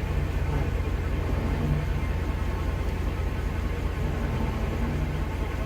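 An engine running steadily, a low rumble with no change in speed.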